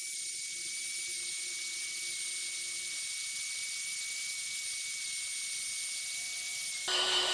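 Cordless drill running steadily while its bit bores through steel plate: a steady high whine over a hiss.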